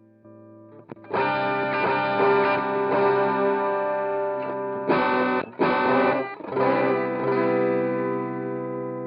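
Electric guitar played through a Hotone Ampero II multi-effects processor with a distorted tone. A faint tail is heard first, then loud chords come in about a second in. Two short stabbed chords follow around five to six seconds in, and a final chord is left ringing and slowly fading.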